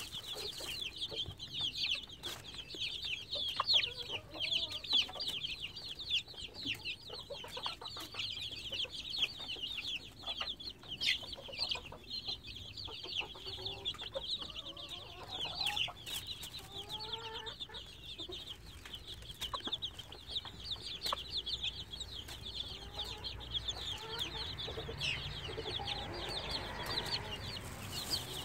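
A brood of young chicks peeping constantly in rapid high chirps, with a mother hen clucking softly now and then underneath.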